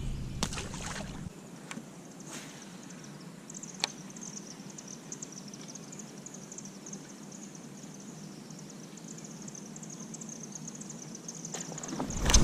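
Quiet open-air ambience on the water with a few faint knocks early on. About a third of the way in, a high, rapidly pulsing chirr of insects sets in and carries on steadily.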